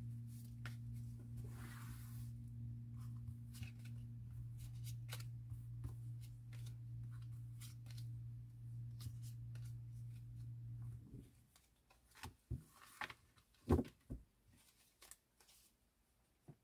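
Tarot cards being shuffled, spread across a cloth-covered table and gathered up, with soft slides and scattered taps and clicks. A few louder taps come near the end. A steady low hum underneath stops abruptly about two-thirds of the way through.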